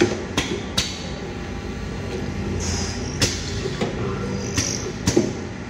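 Automatic two-head horizontal wood-drilling machine running one cycle, its two drill motors humming steadily. Sharp clicks come three times in the first second and again about 3 and 5 seconds in, and two short bursts of air hiss come near the middle and about 4.6 seconds in, from the pneumatic clamp and feed cylinders working.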